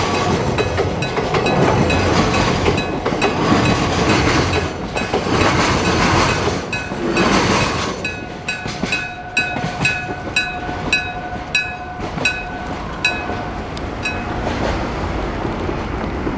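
Train wagons clattering over an electric-bell level crossing, then, as the train clears, the crossing's electric bell striking about twice a second for several seconds before it stops.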